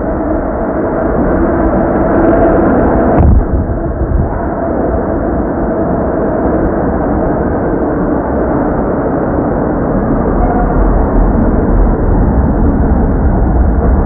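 New York City subway train running along the track: a loud, steady rumble with humming tones running through it, and one sharp knock a little over three seconds in.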